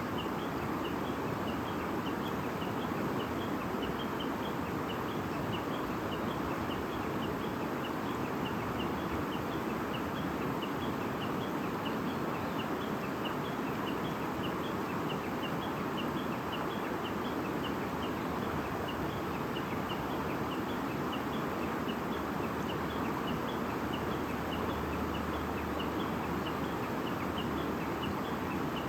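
A babbling stream running steadily, with small birds chirping in quick, repeated high notes over the water.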